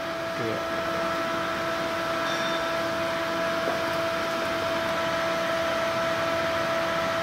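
Steady hum of running machinery, with a few constant tones over an even whir.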